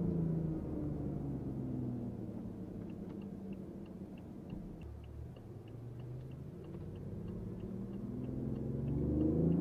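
BMW i8's 1.5-litre turbocharged three-cylinder engine heard from the cabin while driving: its note falls over the first two seconds, runs low for several seconds, then rises steadily near the end as the car accelerates. A light, even ticking, about three a second, runs through the second half.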